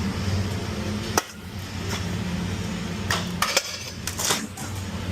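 A steady low machinery hum with several sharp metallic clinks and knocks. The hum cuts out briefly after a click about a second in, then resumes.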